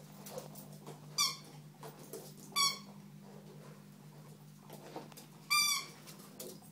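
Squeaky ball toy squeaking three times, short high squeaks a second or so apart and then after a longer gap, as the chihuahua bites down on it. A steady low hum runs under it.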